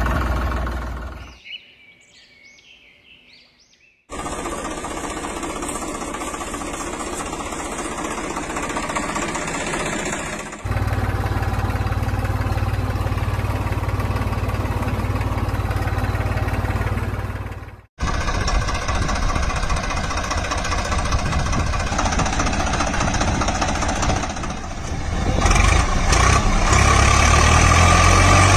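Engine running steadily, in several stretches cut together, with a brief quiet gap about two seconds in and a louder stretch near the end.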